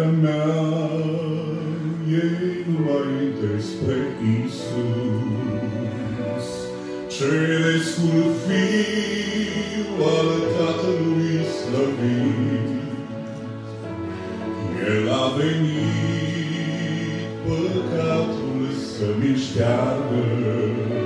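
A man singing a hymn, with long held notes, over instrumental accompaniment.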